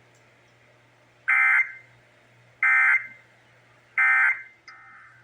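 Emergency Alert System end-of-message signal: three identical short bursts of screechy digital data tones (the SAME code), about a second and a half apart, marking the end of the test. A fainter steady tone starts near the end.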